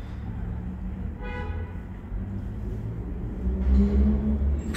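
Low rumble of an R160B subway train running in the tunnel away from the station, swelling between about three and four seconds in. A brief high ringing tone sounds about a second in.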